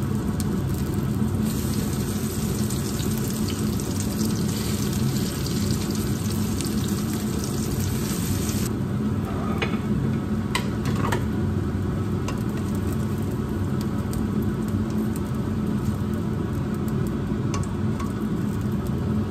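Shredded-potato pancakes frying in shallow oil in a nonstick pan: a steady sizzle over a low hum, with a few clicks of a spatula against the pan around the middle.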